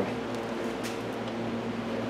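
Steady low hum of room machinery, with a couple of faint clicks of a hand tool working at the carburetor of a two-stroke cut-off saw.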